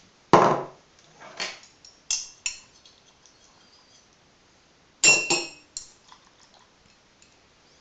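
A ceramic mug and crockery knocking and clinking on a hard surface, with several separate sharp hits. A louder knock comes just after the start, ringing clinks follow about two seconds in, and a close pair of clinks comes about five seconds in.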